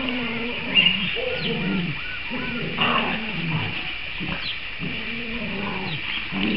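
A large pack of dogs vocalizing together: many overlapping drawn-out whines and howls, with short higher squeaks among them and a sharp louder yelp about a second in.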